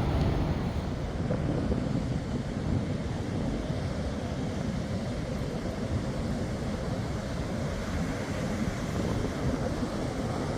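Sea waves washing on the shore, with wind buffeting the microphone: a steady rushing noise, heaviest in the low end.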